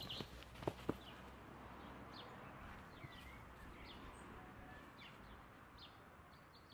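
Faint outdoor background noise with a few small clicks near the start and scattered short bird chirps.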